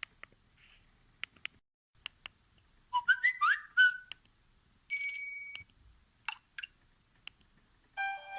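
Samsung GT-C3590's built-in alert tones: scattered short electronic clicks and blips, a quick run of chirping, whistle-like glides about three seconds in, and a brief steady beep about five seconds in. Near the end a new tone with held notes begins.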